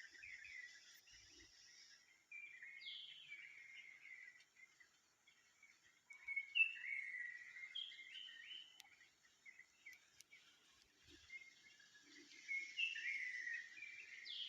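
A small bird calling: bursts of quick chirps and short slurred whistled notes that come in clusters with brief pauses between. A faint high hiss sits behind it at times.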